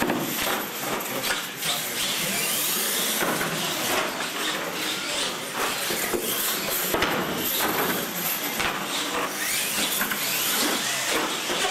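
Radio-controlled monster trucks racing on a concrete floor: a steady rush of tires and running gear, broken by many sharp knocks and clatters as they hit and land off plywood ramps.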